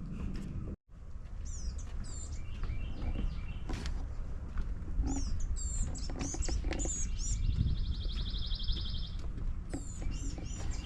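Songbirds singing and calling with many short whistled chirps, joined past the middle by a fast, even trill lasting about two seconds, over a steady low rumble.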